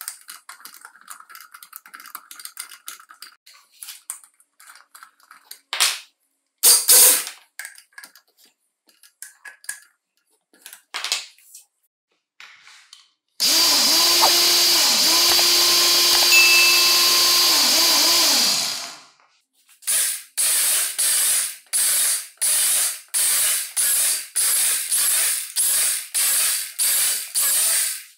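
A chuck key ratchets and clicks against the toothed drill chuck as it is tightened. Then a vintage Makita aluminium-bodied drill, converted to run on an 18 V battery, runs freely with a steady motor tone for about five seconds and winds down. Near the end come about a dozen short bursts in quick succession as the bit bores into wood.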